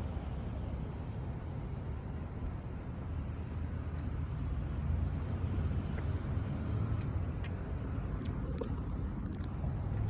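A motor vehicle's engine running steadily, a low rumble with no change in speed, with a few faint clicks in the last few seconds.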